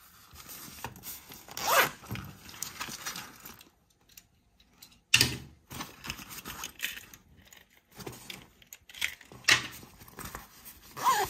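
Zipper on a fabric pencil pouch being pulled open and shut in several separate strokes, with a brief pause in the middle, along with the rustle of the nylon fabric being handled.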